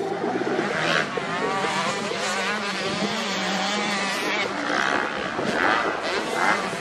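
Several motocross bike engines running at once, their pitch rising and falling as they are revved and shifted, over one steadier low engine note.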